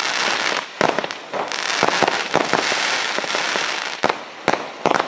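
Lesli Rock 'n Roller firework cake firing: sharp bangs over a continuous crackle from the bursting stars. It thins out about four seconds in, leaving a last few single bangs near the end.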